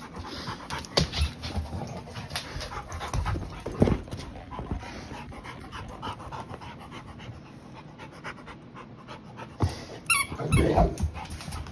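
A Rottweiler panting rapidly, close to the microphone, hot and in need of water. There is a single knock about four seconds in and a brief high, wavering squeak near the end.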